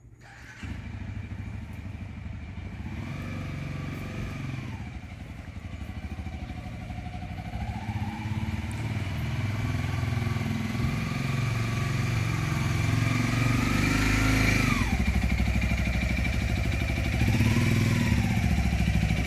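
A motorcycle engine approaching, growing louder as it draws near, its pitch rising and falling several times as the throttle is opened and eased off.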